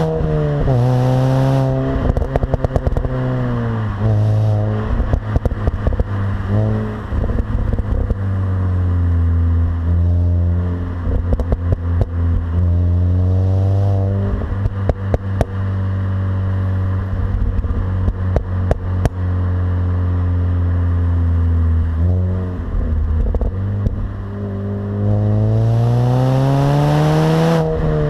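Mini Cooper S R53's supercharged 1.6-litre four-cylinder engine on its stock exhaust, accelerating with rising pitch that drops back at each gear change. Rapid crackles and pops come when the throttle is lifted. A long stretch of steady running comes in the middle, and a long pull to high revs comes near the end.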